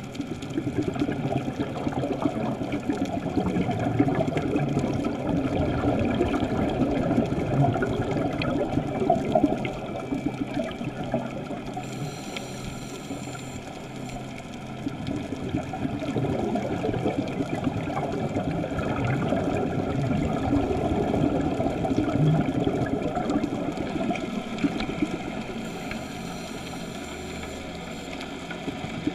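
Underwater recording of a scuba diver's exhaled bubbles, rumbling and crackling against the camera housing. It eases off twice, about twelve and twenty-six seconds in, leaving a faint high hiss.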